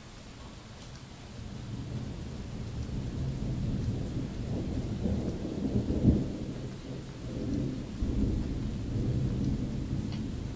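Thunder rolling over steady rain: a low rumble builds from about a second and a half in, peaks with a sharp crack around six seconds, then keeps rumbling more softly.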